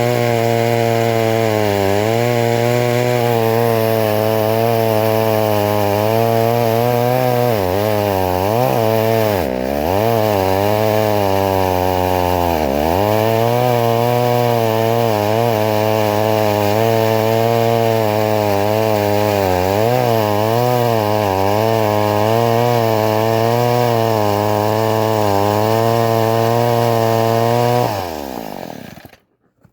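McCulloch Mini Mac 35 two-stroke chainsaw running at speed while cutting wood, its engine pitch wavering and sagging under load about eight to ten seconds in and again about twelve seconds in. Near the end it is shut off and winds down quickly to silence.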